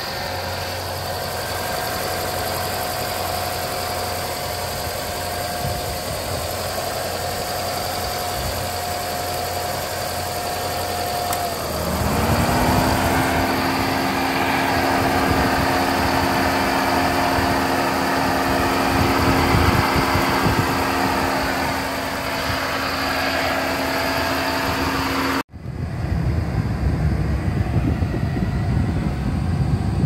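Subaru kei car engine idling in the open engine bay. About twelve seconds in, the electric cooling fan spins up with a rising whir and then runs steadily alongside the engine. Near the end the sound cuts to a steady rushing noise.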